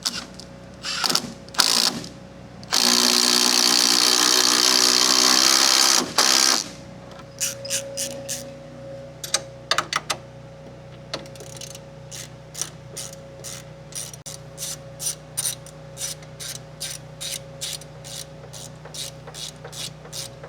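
Hand ratchet wrench clicking in a steady rhythm, about two to three clicks a second, as bolts are turned down on a car's front sway bar. Early on, a loud steady mechanical whir runs for about three seconds.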